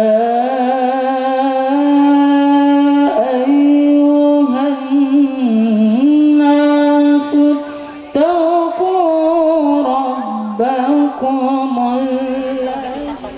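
A man chanting a Quran recitation (tilawah) into a microphone, drawing out long, ornamented melodic phrases and pausing for breath about eight seconds in.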